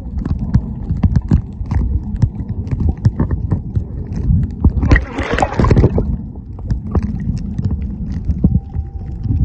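Underwater sound picked up by a submerged camera: a steady low rumble of moving water with many small clicks and crackles, and a burst of hiss about five seconds in. A faint steady tone comes in near the end.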